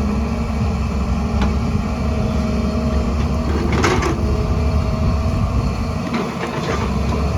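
Heavy excavator's diesel engine running steadily, with a few short clanks and scrapes of the bucket working rock and soil, the loudest about four seconds in.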